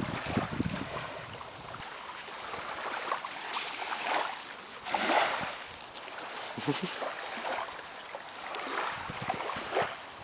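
Small waves washing onto a sandy beach in soft surges of water noise, with wind buffeting the microphone in the first two seconds.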